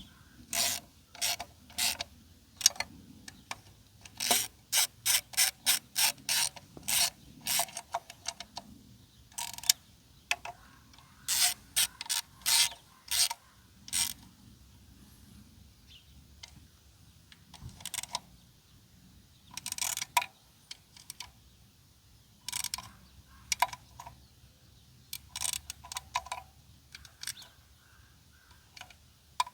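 Hand socket ratchet clicking in bursts of quick strokes with pauses between, as bolts are run down on an engine being reassembled.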